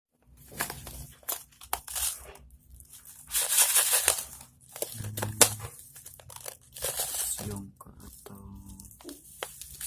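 Crinkling, crunching handling noise in irregular bursts, with a few sharp clicks.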